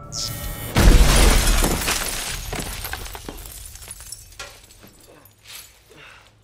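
A brief rising whine, then a loud blast about a second in, with glass shattering. The blast fades over a few seconds into scattered clatter of falling debris: a lab experiment blowing up.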